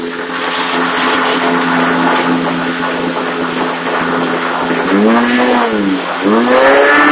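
Small model engine spinning a propeller, running at a steady pitch, then revved up and back down twice near the end.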